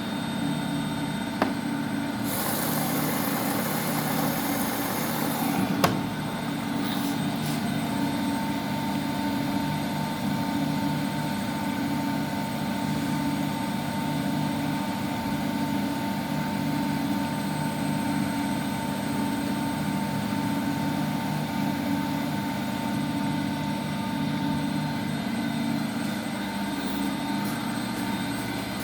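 Washing machine running with a steady motor hum. About two seconds in there is a brief hiss lasting some three seconds, ending with a click, and from about eight seconds on a thin steady whine sits above the hum.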